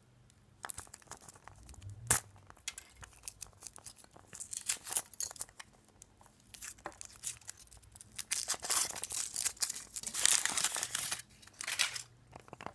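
Foil wrapper of a Kinder Surprise chocolate egg being torn and crinkled off, in irregular crackles that grow denser and louder near the end, with a single sharp snap about two seconds in.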